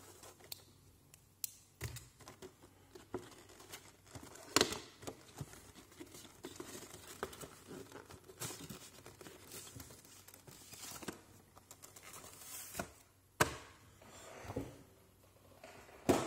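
Cardboard display box and its clear plastic packaging being opened and handled by hand: irregular rustling and crinkling broken by sharp clicks and snaps, the loudest about four and a half seconds in.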